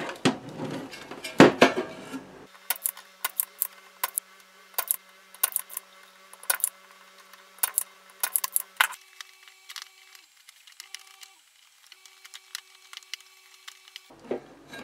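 Handling noise as a circuit board is turned over and set down, then scattered sharp clicks and taps of soldering tools on the board while solder joints are worked, thinning out toward the end.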